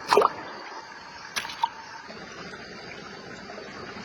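Shallow stream water running with a steady hiss. A brief sharp sound comes right at the start and two more about a second and a half in.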